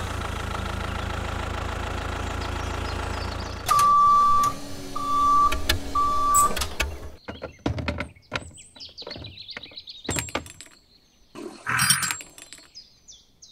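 A tractor engine runs steadily, with three short beeps about four to six seconds in. The engine stops about seven seconds in. Scattered clicks and light knocks follow as a cultivator is hitched to a toy tractor's drawbar.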